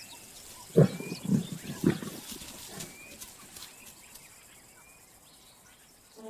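Lions growling, with three short, loud low grunts in quick succession about a second in, then quieter.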